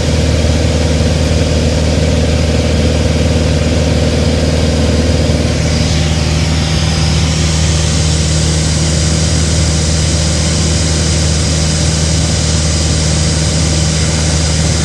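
Single-engine light aircraft's piston engine and propeller droning steadily, heard from inside the cabin. A brighter hiss of air rises about halfway through.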